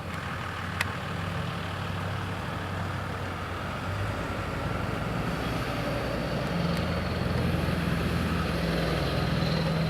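Steady low engine hum of a motor vehicle running nearby, over a background wash of noise, growing a little louder toward the end; a faint click about a second in.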